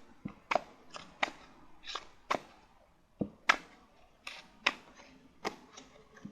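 Oracle cards being handled and shuffled: a series of sharp, separate card snaps and taps at an irregular pace, roughly two a second.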